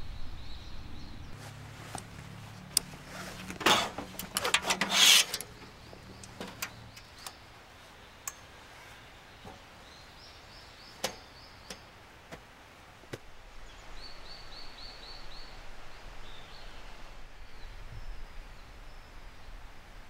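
Camp gear being handled and set up: a burst of rustling and sharp clicks about four seconds in, then scattered single clicks as a folding camp table is unfolded. A bird chirps short runs of quick notes in the background.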